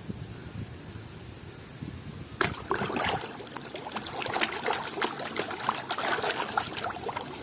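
Water splashing and trickling as a muddy toy is washed, starting about two and a half seconds in, with many small sharp splashes.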